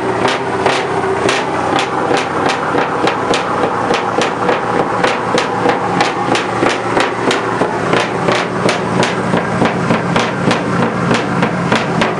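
Scania R480 V8 truck engine with a sports exhaust running steadily at idle, under a sharp, regular knocking of about three or four knocks a second.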